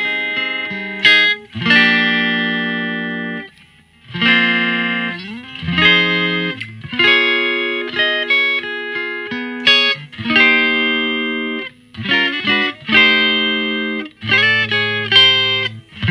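Electric guitar played through a One Control Sonic Blue Twanger pedal into a Yamaha THR5 amp, a clean, bright tone meant to sound like a Fender blackface amp. It plays a phrase of ringing chords and single notes, with a bend or slide about five seconds in and a quick run of notes near twelve seconds.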